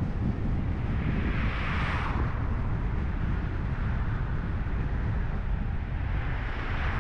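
Car driving on a city road: a steady low rumble of road and wind noise, with two swells of tyre hiss, one about two seconds in and one near the end.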